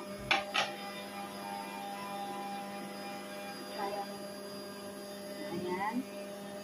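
Electric centrifugal juicer running steadily with an even motor hum, while carrots are fed in. A few light clicks and knocks of produce being handled come in the first second.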